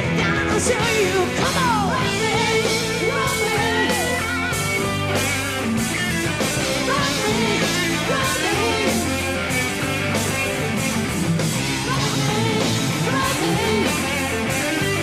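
Hard-rock band playing live: an electric guitar plays a lead with bent, gliding notes over steady drums and bass.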